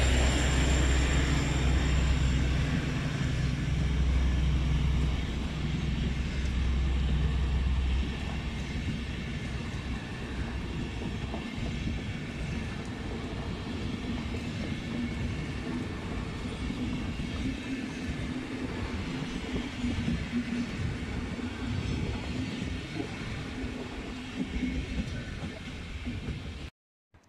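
Intercity train running past: a steady rumble and rattle of coaches on the rails. For about the first eight seconds a deep engine drone is loud under the rumble, then it drops away and only the coaches go on until the sound cuts off just before the end.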